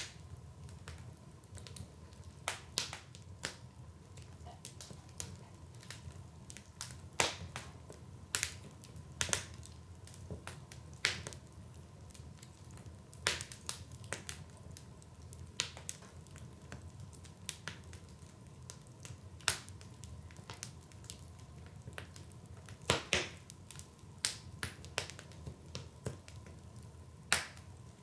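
Wood fire burning in a fireplace, crackling with irregular sharp pops and snaps, a few louder than the rest, over a steady low rumble.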